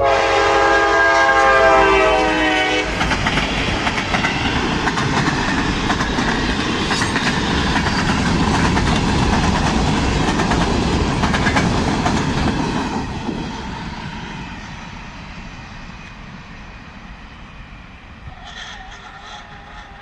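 CSX diesel freight locomotive sounding a multi-note horn for about three seconds as it passes, followed by the rumble and clatter of coal hopper cars rolling by on the rails, with a few sharp clanks, fading after about thirteen seconds.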